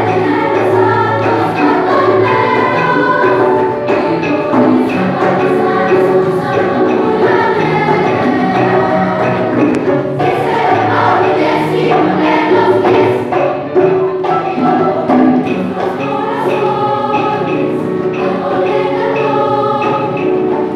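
Children's choir of boys and girls singing a song together, with no pause.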